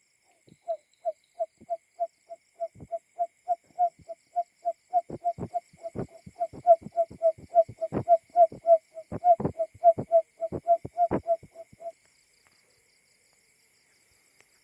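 Barred buttonquail hooting call, played as a simulated male call: a long run of short low hoots, about three a second, growing louder and stopping about twelve seconds in. Faint insects drone underneath.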